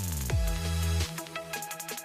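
Electronic dance music with a heavy bass line, a downward-sliding bass drop at the start and steady hi-hat ticks.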